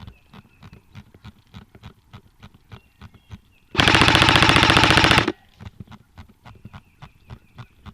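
Airsoft rifle firing a single full-auto burst about four seconds in: a fast, even rattle of shots lasting about a second and a half. Light clicks tick steadily before and after it.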